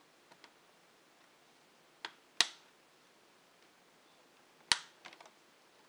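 Plastic screen bezel of an MSI A5000 laptop being pried off by fingernail, its clips snapping loose: a pair of sharp snaps about two seconds in, another just before five seconds followed by a few small clicks.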